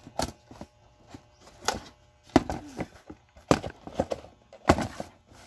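Handling knocks from a plastic Tenda F6 Wi-Fi router being moved about and lifted out of its molded pulp packaging tray: about six sharp knocks with scraping in between and a brief squeak about halfway.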